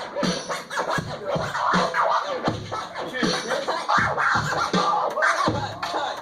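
DJ scratching a vinyl record on a turntable, quick back-and-forth cuts over a steady beat.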